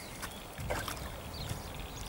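Spinning reel being cranked while playing a small hooked carp on light tackle, with a steady low wind rumble on the microphone and a few faint clicks.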